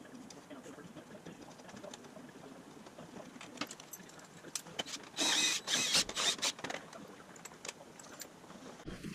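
Small metal clicks and clinks from hand tools and steering-column hardware being handled, with a louder burst of rattling clatter about five seconds in that lasts a second and a half.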